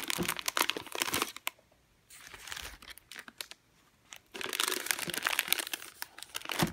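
Crinkling of flower-bouquet wrapping as the wrapped bouquets are handled and set into vases. It comes in three bouts of rustling: the first and a half second, a softer stretch about two to three seconds in, and again from about four seconds in.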